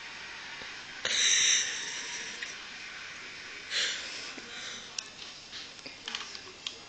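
A person's sharp, noisy breath through the nose about a second in, and a shorter one near four seconds, with a few faint clicks later on.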